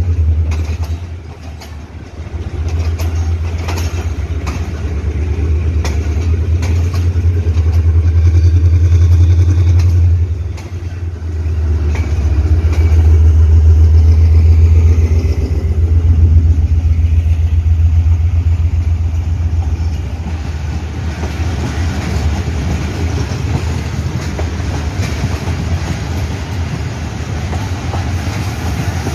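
Diesel-hauled passenger train rolling through a station, its wheels clicking over the rail joints. A heavy low rumble runs underneath, dipping briefly about two seconds in and again about ten seconds in.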